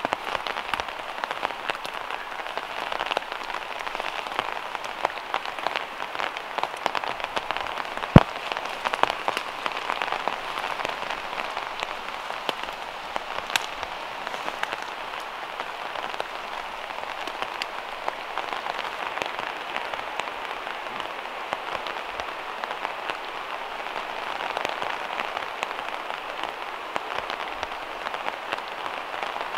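Gentle rain falling through forest foliage: a steady, dense patter of drops dripping from leaves and moss, with one sharp, loud tap about eight seconds in.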